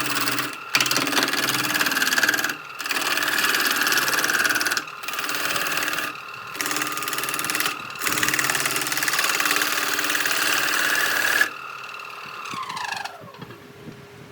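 Electric power tool motor running loudly against wood, broken by several brief gaps. Near the end it is switched off and winds down in a falling whine.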